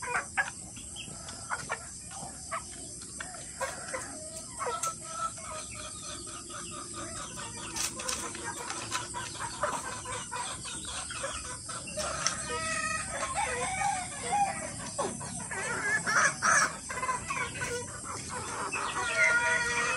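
Kelso gamefowl chickens clucking, with a rooster crowing; the calls grow louder and more frequent in the second half.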